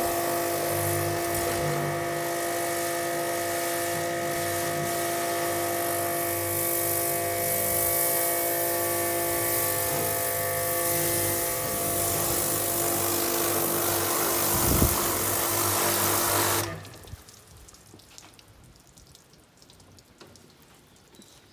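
High-pressure washer spraying: a steady pump whine under the hiss of the water jet. It cuts off suddenly with about five seconds left, leaving only faint sound.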